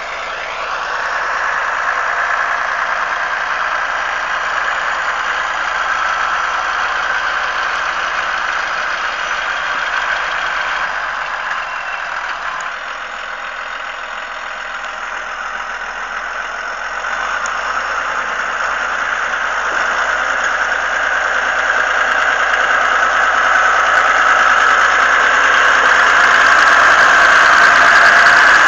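Snow-ploughing or gritting vehicle at work: its engine running steadily with a high squealing tone, dipping for a few seconds mid-way and growing louder over the last several seconds.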